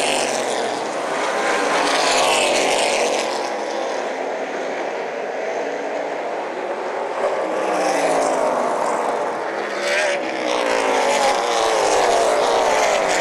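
Outlaw Super Late Model stock cars racing around an asphalt oval, their V8 engines at full throttle. Packs of cars sweep past about two seconds in and again from about eight seconds on, the engine note sliding down in pitch as each pack goes by.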